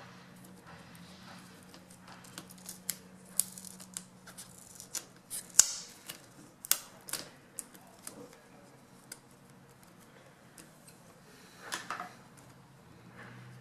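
Irregular small clicks, taps and scrapes of thin wires and cables being pulled out of their routing channels in a laptop's plastic display bezel, busiest and loudest around the middle.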